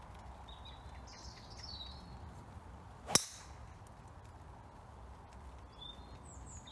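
A single sharp crack of a golf club head striking the ball off the tee, about three seconds in. Birds chirp faintly before and after it.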